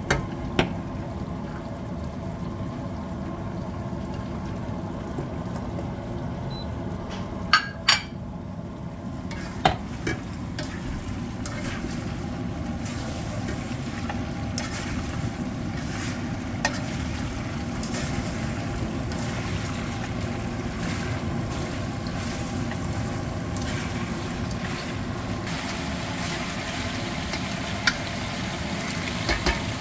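Meat frying in a nonstick wok, sizzling steadily as it is stirred with a slotted spatula. A few sharp knocks of the spatula or lid against the pan are heard, two close together about a third of the way in.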